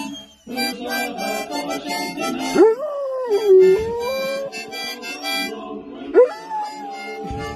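A dog howling along to a harmonica. The harmonica plays chords while the howl rises about two and a half seconds in, wavers and holds; a second howl rises near the end and is held.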